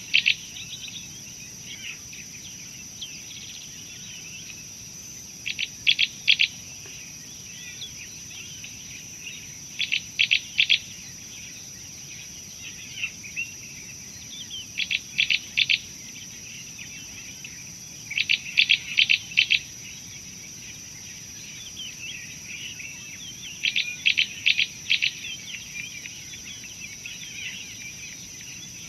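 Small birds calling: a short phrase of three to five quick, high notes is repeated about every four to five seconds, with faint chirping between. Under it runs a steady, high insect drone.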